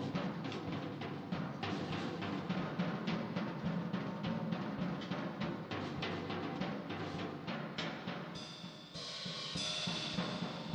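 Acoustic drum kit played fast: quick tom, snare and bass-drum hits. Near the end the hits thin out under about two seconds of ringing cymbal wash.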